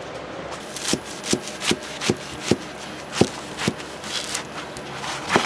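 Kitchen knife chopping on a cutting board: about eight sharp, unevenly spaced knocks at roughly two a second, the last one near the end.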